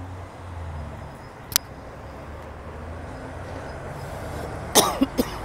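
Street traffic, with a steady hum of vehicle engines, and a single sharp click about a second and a half in. Near the end, a person coughs in three quick, loud bursts.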